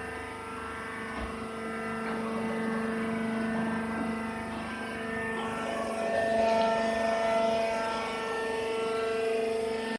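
Wood chip round baler running: a steady mechanical drone with a strong hum, getting somewhat louder about six seconds in.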